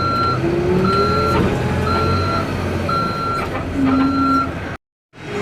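Reversing alarm on an XCMG backhoe loader beeping about once a second, five times, over the diesel engine running. The sound cuts to silence for a moment near the end.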